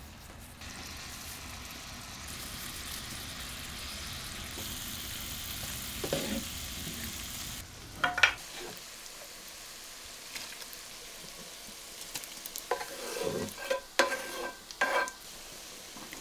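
Grated carrot, onion and pickled cucumber sizzling in oil in a frying pan, a steady hiss that grows brighter partway through. A wooden spatula then stirs, with clicks and scrapes about halfway and a run of louder knocks and scrapes near the end.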